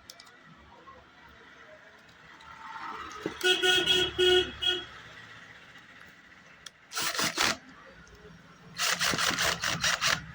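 A vehicle horn sounding in a quick series of short toots about three to five seconds in, followed by two bursts of scraping noise, the second one longer, near the end.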